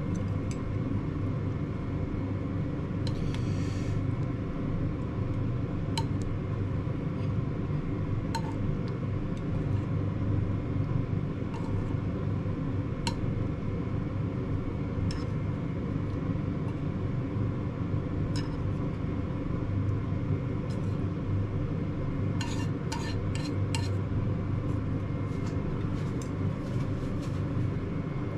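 A steady low mechanical hum runs throughout, with scattered light clinks of dishes and cutlery as food is handled and plated. The clinks come in a quick cluster about 22 to 24 seconds in.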